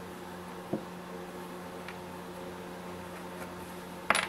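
Small plastic RC truck parts (steering hub and tie rod end) handled by hand: a light click under a second in and a sharper click near the end, over a steady faint hum.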